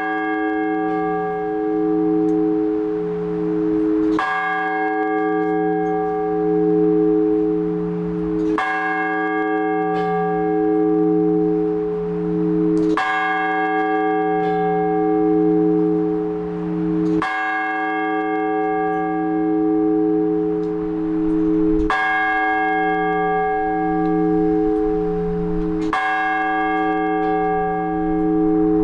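A single large Orthodox church bell struck in slow, measured strokes about every four seconds: the blagovest that calls people to the all-night vigil. Each stroke rings on until the next, its deep hum pulsing slowly.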